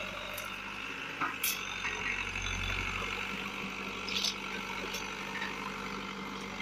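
Diesel engine of a CAT 424B backhoe loader running as the machine drives slowly over cut sugarcane stubble, with a steady low hum that swells briefly about halfway through. A few short sharp clicks sound over it.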